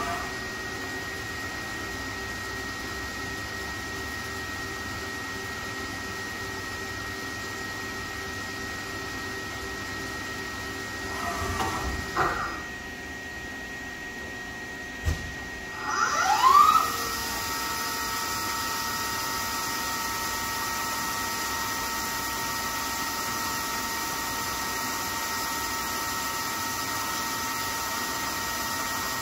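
Okuma LB35 II CNC lathe running a program without a workpiece: a steady machine whine with several held tones. About halfway through it swells briefly, then a sharp click follows, and a whine rises quickly in pitch as a drive spins up. This is the loudest moment, and the sound then settles into a steady, higher whine.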